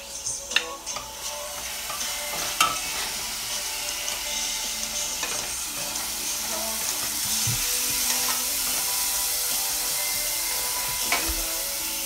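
Minced garlic and ginger sizzling in hot oil in a stainless steel saucepan while being stirred with a wooden spatula. There are a few sharp clicks of the spatula against the pan in the first three seconds.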